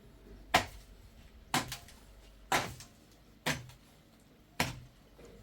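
Five sharp knocks about a second apart, evenly spaced, each with a brief ring after it.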